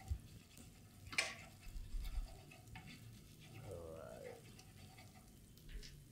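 Wooden spatula stirring halved lobsters in a non-stick frying pan, with a quiet sizzle of frying. There is one sharp knock of the spatula against the pan about a second in, and a few lighter scrapes and taps.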